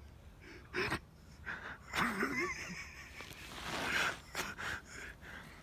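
A person's short, breathy gasps in several bursts, with one wavering voiced sound about two seconds in.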